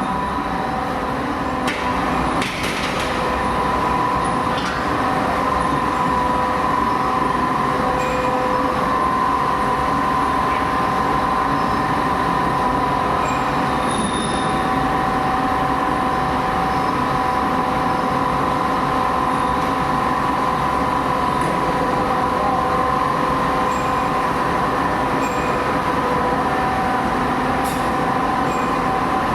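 Pit-type gas carburising furnace in operation: a steady, continuous machinery noise with a few constant whining tones, like a running circulation fan or blower, and occasional faint clicks.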